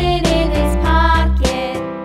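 Upbeat children's background music: a bright tune over a steady bass and beat.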